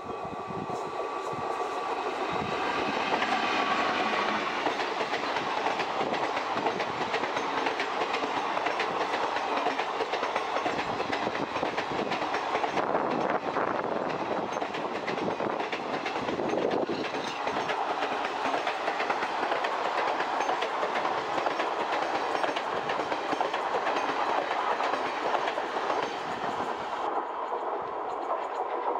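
Gujarat Express, hauled by a WAP-4 electric locomotive, passing at speed: a whine that falls slightly in pitch over the first few seconds, then a long steady rattle and clickety-clack of coaches over the rail joints, easing off near the end.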